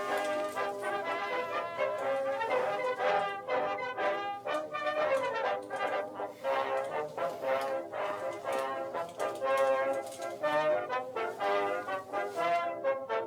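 Music led by brass instruments, playing a melody of changing notes.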